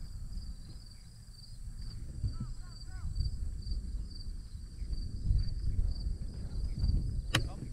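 Insects chirping in a steady, fast-pulsing high drone, over a low rumble of wind on the microphone, with a sharp click near the end.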